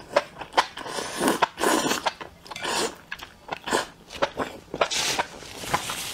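Close-miked biting and chewing of sauce-coated enoki mushrooms: irregular wet mouth clicks, with a few longer hissing bursts.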